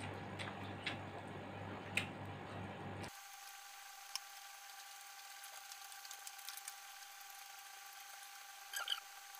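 Faint clicks of a metal fork and spoon against a plate while noodles are twirled and eaten, with a brief louder scrape near the end as a fork goes into roast chicken. A low hum underneath cuts off abruptly about three seconds in, leaving a faint steady whine.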